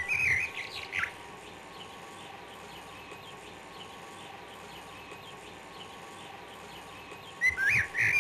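Songbirds calling: loud gliding whistled calls in the first second and again near the end, with a faint chorus of small chirps over a steady hiss in between.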